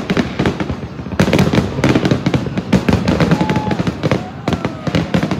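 Aerial fireworks shells bursting in a rapid barrage, with many bangs and crackles coming close together.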